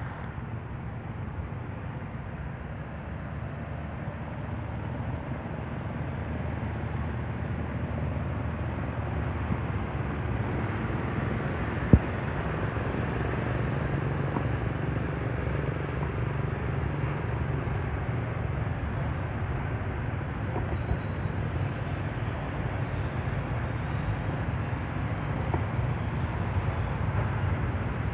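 Steady low outdoor rumble, slowly growing louder, with one sharp click about twelve seconds in.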